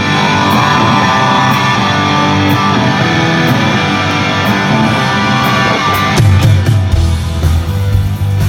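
Live rock band playing loud through a PA at a sound check, electric guitar prominent; the bass and drums get heavier about six seconds in.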